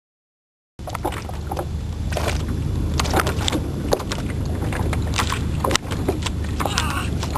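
Sound starts suddenly about a second in: a steady low rumble with frequent short water splashes and slaps on top.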